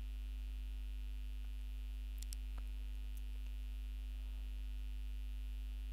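Steady low electrical mains hum on the recording, with a couple of faint clicks a little over two seconds in.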